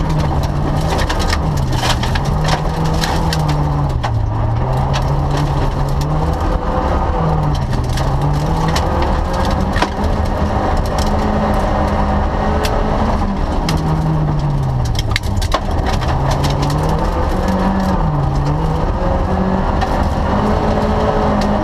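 Rally car engine heard from inside the cockpit, driven hard on a gravel stage, its revs climbing and falling back again and again through gear changes and lifts. Gravel and stones crackle against the underbody throughout.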